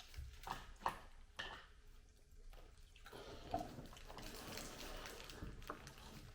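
Faint clicks, then light crackling and rustling from about three seconds in, of a plastic candy-bar wrapper being handled and opened.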